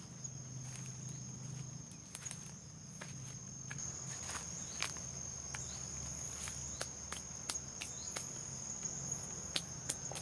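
A steady high-pitched insect drone, growing louder about four seconds in, with scattered light clicks and rustles over it.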